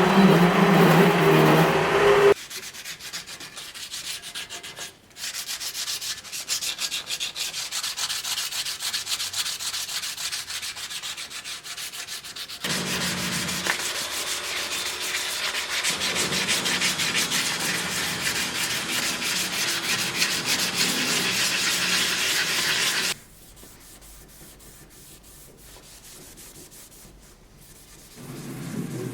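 Steel blade being sanded with abrasive: a scratchy, rasping hiss that runs in stretches. It starts with a louder machine hum for about two seconds, gets heavier with a low hum under it from about the middle, and drops to a quiet stretch near the end.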